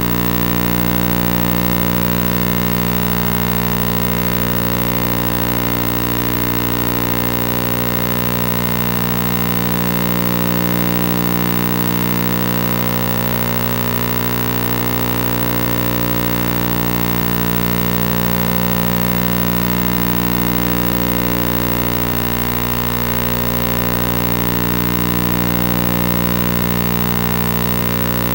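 A steady droning hum with many overtones that never stops, swelling and fading slowly about every two and a half seconds.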